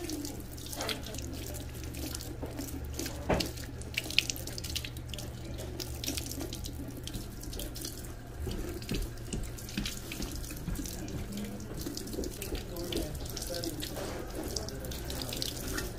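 Salon shampoo-sink spray head running, its water spattering over a beard and splashing into the basin as hair dye is rinsed out. There is a steady rush of water throughout, with a couple of sharp knocks about three and four seconds in.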